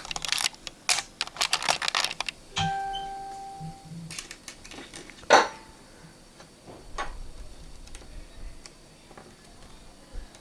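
Small tools and metal phone parts clicking and tapping in quick succession, then a short metallic ring that lasts about a second, and one sharp click about five seconds in, as the metal home-button bracket is handled during reassembly.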